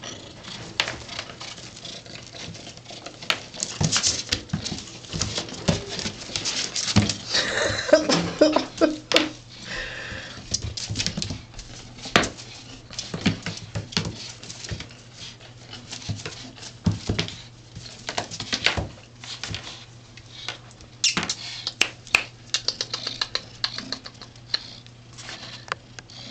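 Savannah kitten's paws pattering and scrambling on a tile floor as it pounces on a feather wand toy, with scattered sharp taps and clicks of paws, claws and the toy striking the tiles. A steady low hum runs underneath.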